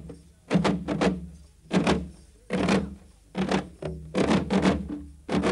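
Drums beating an uneven dance rhythm: sharp, resonant strokes in short groups of two or three, a few each second, with brief gaps between the groups.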